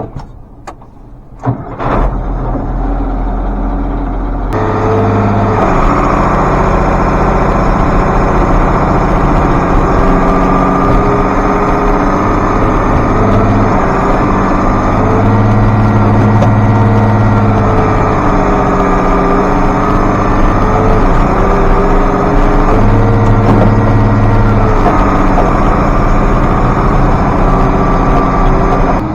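International 5288 tractor's diesel engine running: a low rumble starts about two seconds in, grows louder a couple of seconds later, and its pitch then rises and falls repeatedly as the engine is worked under load.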